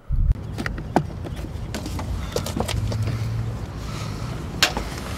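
Car on the move, heard from inside the cabin: a steady low rumble of engine and road, with a few light clicks.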